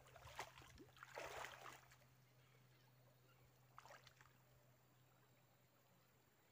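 Faint splashing of shallow river water around a wader's legs, a few splashes in the first two seconds and one more about four seconds in, then near silence with a faint low steady hum.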